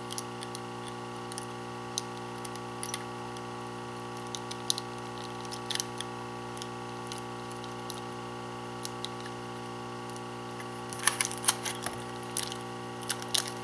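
Light clicks and taps of a plastic IC socket being handled and pushed into the holes of a circuit board, busiest about eleven seconds in, over a steady hum.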